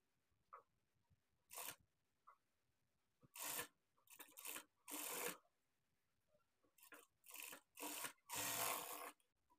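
Faint rustling and rubbing of fabric being smoothed and slid across a sewing machine table by hand, in several short brushes, the longest near the end.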